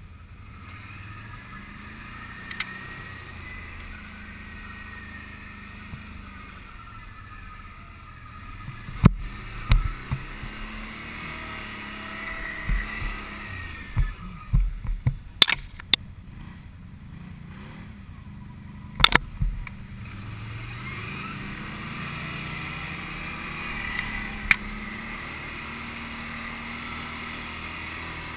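Can-Am Outlander ATV engine running under way, its pitch rising and falling with the throttle. Several sharp knocks and thumps cut in around the middle, the loudest about nineteen seconds in.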